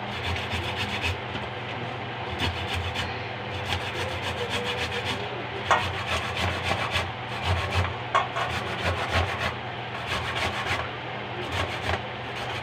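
Peeled cassava root grated by hand on a round stainless-steel grater: quick, repeated rasping scrapes, with a few louder strokes.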